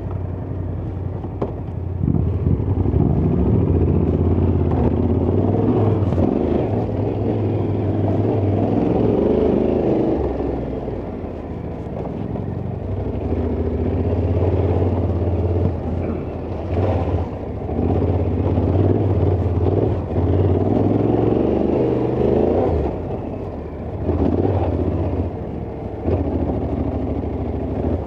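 Yamaha Ténéré 700's parallel-twin engine running under way on a muddy trail, its revs rising and falling repeatedly with the throttle.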